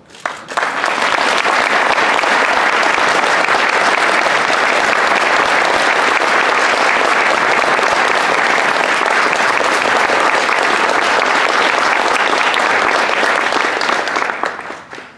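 Audience applauding: a dense clatter of hand claps that starts suddenly, holds steady, and dies away near the end.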